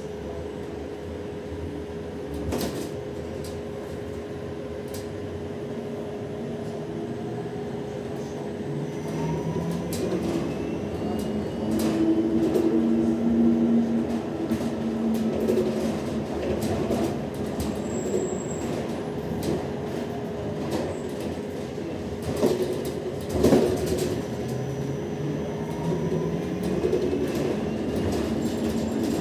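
Cabin sound of a LiAZ-6274 electric bus under way: the electric drive's whine rises in pitch as the bus speeds up, over a steady hum and road rumble. A few knocks and rattles come through the cabin, the sharpest about two-thirds of the way through.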